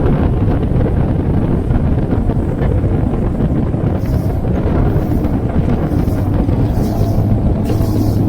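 Wind buffeting the microphone in a steady, loud low rumble over a faint low hum. From about halfway, short high hissing hits come at intervals, like cymbals in background music.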